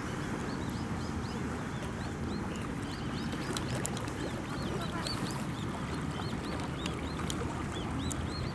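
Birds calling: many short, high chirps scattered over a steady low rumble of outdoor background noise, with a few sharp clicks.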